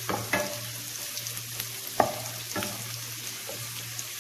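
Boneless marinated chicken pieces sizzling in hot oil in a non-stick wok, with a wooden spatula scraping and knocking against the pan a few times, loudest about two seconds in. A steady low hum runs underneath.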